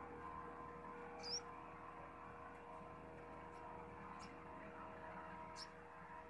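Faint steady background hum with two short high-pitched squeaks, about a second in and near the end, and a few fainter ticks between them.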